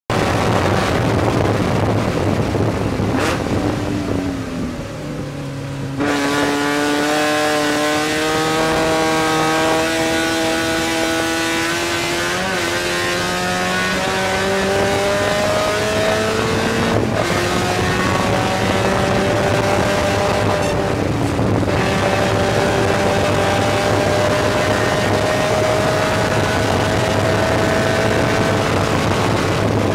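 Spec Miata race car's four-cylinder engine pulling hard, heard from inside the cockpit, over a steady hiss of road and wind noise. The engine eases off briefly about four seconds in, then its note climbs slowly for about ten seconds, drops at a gear change, and climbs again.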